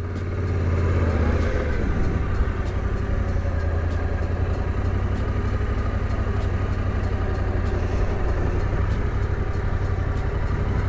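Yamaha Ténéré 700's parallel-twin engine running steadily at low revs as the motorcycle is ridden at walking pace through tight figure-eight turns.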